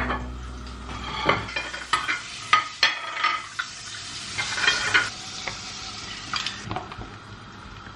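Breakfast-plating clatter: ceramic ramekins and plates set down on the countertop and a metal spoon scooping olives out of a plastic container, a string of separate clicks and clinks. A light hiss runs underneath until about two-thirds of the way through.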